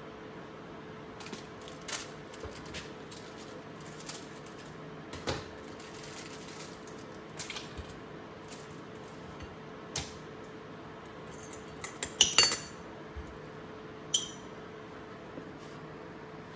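Small metal items being handled: scattered light clinks and taps, with a cluster of louder metallic clanks about twelve seconds in and one ringing clink soon after. A faint steady hum runs underneath.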